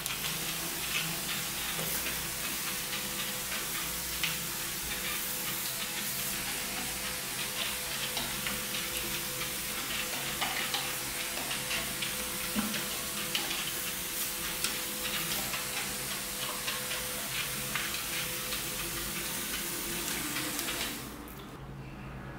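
Steady hiss of a sprayer misting liquid onto loose coconut fibre, with fine crackling throughout, cutting off about 21 seconds in.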